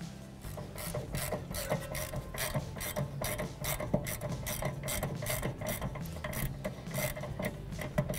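A ratcheting wrench clicking in quick, repeated strokes, about three or four clicks a second, as it runs the lower strut mounting bolt through the knuckle.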